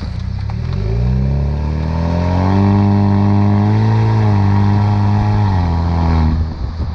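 Exhaust of a 2019 Jeep Wrangler JL's 2.0-liter turbo four through an aFe Power High Tuck stainless steel cat-back system, heard at the tailpipe under acceleration. The rumble rises in pitch for about two seconds, holds high, then drops back as the throttle eases near the end.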